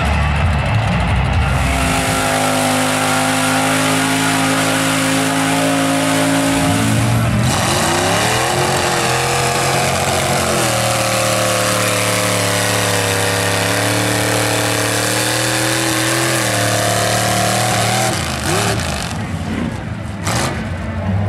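Engine of a lifted tractor-tire mud truck revving hard and held at high revs over a thick rushing noise. The revs drop and climb again about a third of the way in, and rise once more near the end before the sound thins out.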